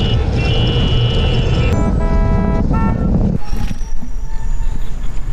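Heavy road and wind rumble from a moving bicycle in street traffic, with a vehicle horn sounding for about a second and a half about two seconds in. The rumble drops off suddenly just past three seconds, leaving quieter street sound.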